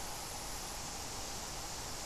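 Steady outdoor ambient noise: an even hiss with no distinct events and no voices.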